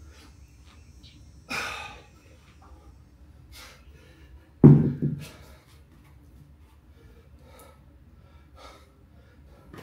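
A man breathing hard and panting after kettlebell swings, with a sharp gasping exhale about a second and a half in. About four and a half seconds in comes a heavy low thud, then a softer second one, as a 100-pound kettlebell is set down on a concrete floor.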